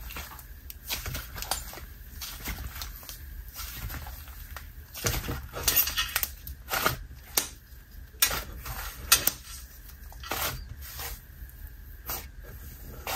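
Slime being squished and poked by hand, making irregular clicks, crackles and small pops, with a few louder pops in the middle stretch.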